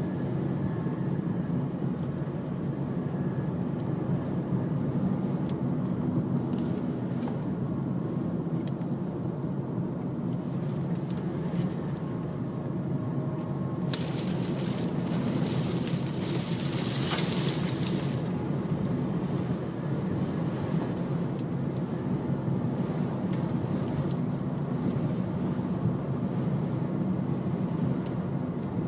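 Steady low rumble of a vehicle running, with a burst of hiss lasting about four seconds midway.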